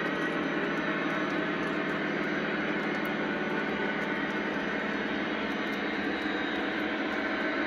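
Model autorack freight cars rolling past on Lionel O-gauge track, a steady rolling noise of metal wheels on the rails.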